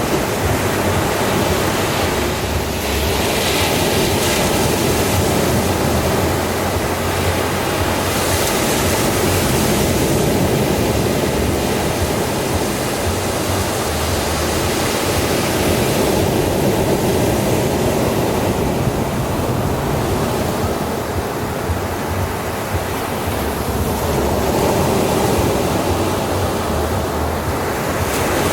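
Sea waves breaking on a beach: a continuous wash of surf, with the hiss swelling as a wave breaks every several seconds.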